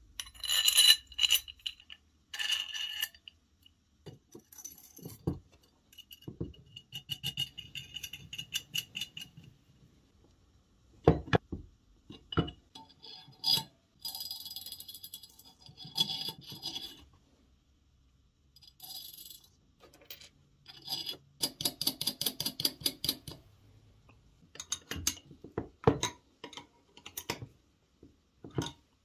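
Steel washers, bolts and small ball bearings clinking and rattling against steel square tubing while a bearing carriage is assembled by hand. Bright metallic clinks and short jangles come in bursts, with brief quiet pauses between them.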